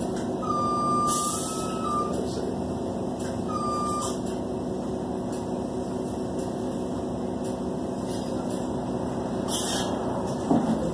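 City bus interior: steady engine hum with short electronic beeps in the first few seconds, the first stepping up slightly in pitch. There are brief air hisses about a second in and near the end, and a short knock just before the end.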